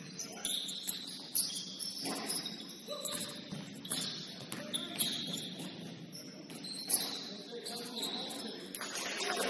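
Sneakers squeaking on a hardwood basketball court in short, high chirps, many times over, with a few sharp thuds and faint voices in the gym.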